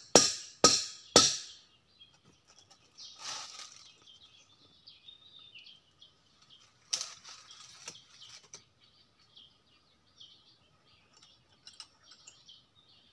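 Sharp, evenly spaced knocks, about two a second, end a little over a second in. Then come faint high bird chirps, with short rustles and scrapes from a climber's boots and clothing against the tree trunk and leaves at about three and seven seconds.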